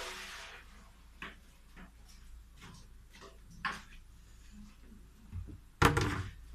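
Faint scattered clicks and small knocks of handling, then near the end a loud, brief clatter as a plastic bucket of water is brought to and knocked against the basin.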